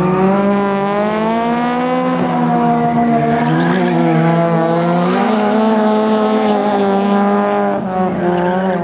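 Front-wheel-drive race car's engine held at high revs, its pitch rising and falling as the driver works the throttle, with a brief dip near the end.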